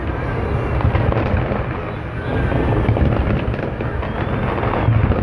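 A fireworks display going off in a continuous barrage: dense crackling and popping over a steady low rumble of bursts.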